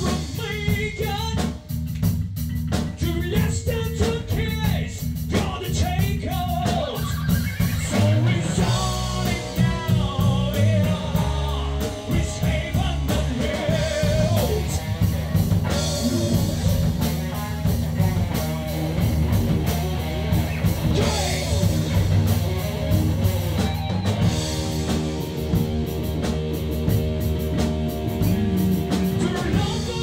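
A rock band playing live in a rehearsal room: a man singing into a microphone over electric guitar, bass and a drum kit.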